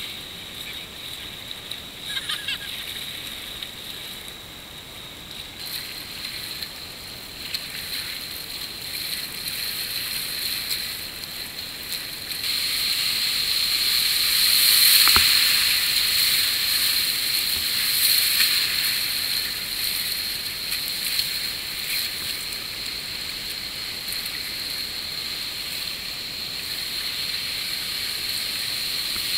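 Whitewater rushing and splashing around a kayak running river rapids, heard from the boat's bow. It grows louder about halfway through as the kayak enters the waves, with a single sharp knock just after that.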